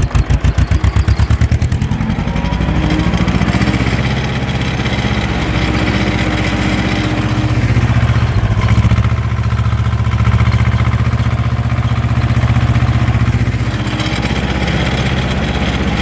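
Ursus C-330M tractor's two-cylinder diesel engine running while pulling a spring-tine cultivator through the field. It pulses heavily for the first couple of seconds, then settles into a steady, even drone.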